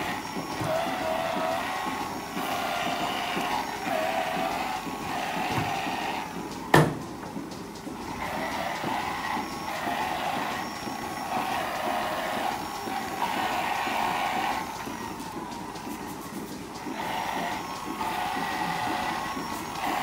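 Milking parlour machinery running: a steady mechanical hum and hiss that swells and fades every couple of seconds, with one sharp click about seven seconds in.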